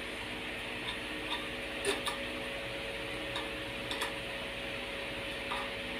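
Light, irregular clicks and taps of a chapati being handled on a flat iron griddle (tawa), about eight in all and loudest around two seconds in, over a steady background hum.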